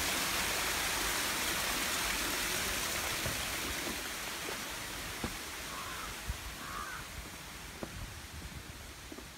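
Rushing, splashing water of a garden water feature around stepping stones, fading steadily as the footsteps move away from it. A few footsteps on stone, and a bird calls twice about six seconds in.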